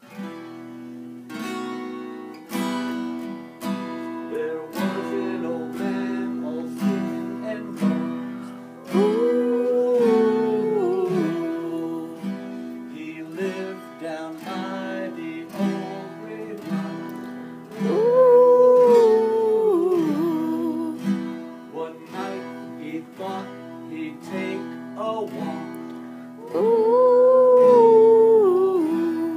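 Acoustic guitar strummed in a steady rhythm under children singing a Halloween song, with three long, wavering held notes about nine, eighteen and twenty-seven seconds in, the loudest parts.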